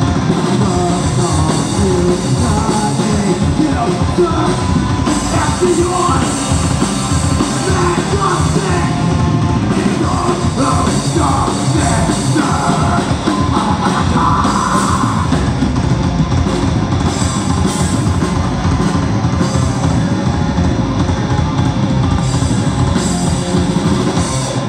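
Live rock band playing loud: electric guitars, drum kit and a sung lead vocal, the song stopping abruptly near the end.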